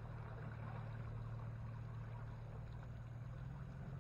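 Boat motor running steadily at low speed: an even low hum with a soft hiss over it.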